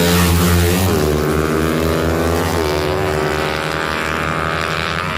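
Small drag-racing motorcycle engine at full throttle, its pitch climbing and then shifting at gear changes about a second in and again about halfway through.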